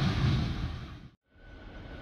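Passing train's rumble fading away, then cutting out briefly just after a second in and coming back quieter with a thin, steady high whine.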